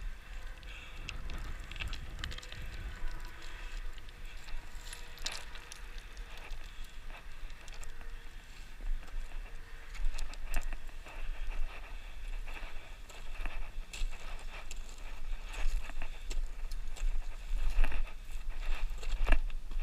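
Wind buffeting a body-worn camera's microphone, with scattered scrapes and clicks of boots and hands on rock during a steep scramble.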